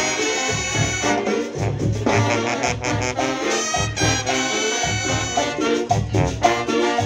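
Marching band playing a lively tune on brass and saxophones over a steady beat.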